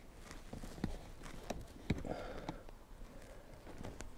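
A few faint, scattered clicks and knocks over a low rustle: handling noise.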